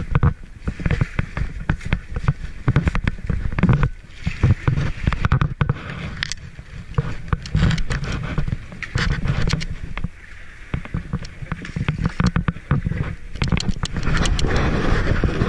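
Yellow sea kayak being launched from a gravel beach: gravel crunching and clicking under the hull, with knocks and a low rumble through the kayak-mounted camera. Near the end the hull scrapes off the gravel into the water.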